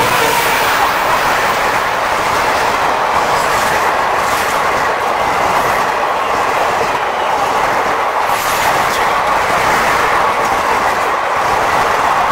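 Indian Railways passenger coaches passing close by at speed: a steady loud rush of steel wheels on rail, with a few sharper clicks as wheels cross rail joints.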